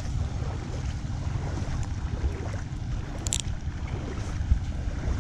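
Steady rush of flood water with wind buffeting the microphone, and one short sharp click about three seconds in.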